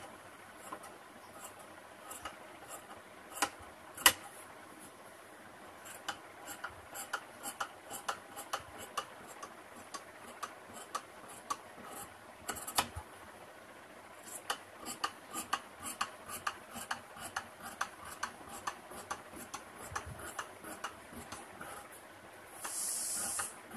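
Tailor's scissors snipping through kurta cloth: a run of short sharp clicks, about two a second, slow and careful, with a brief pause in the middle. One sharper click about four seconds in, and a brief hiss near the end.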